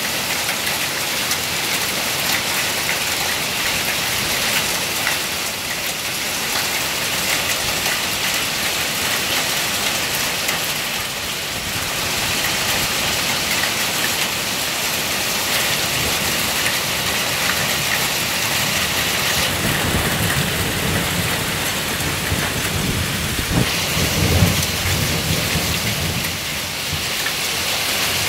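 A thunderstorm's heavy rain mixed with small hail falls steadily on a lawn. In the second half, thunder rumbles low, loudest about three-quarters of the way through.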